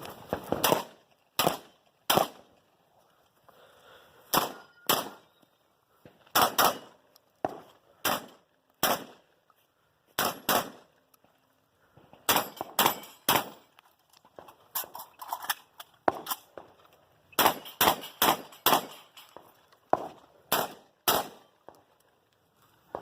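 Rock Island Armory VR-80 semi-automatic 12-gauge shotgun fired in a competition stage: sharp shots in quick pairs and short strings of three to five, with pauses of a second or two between groups.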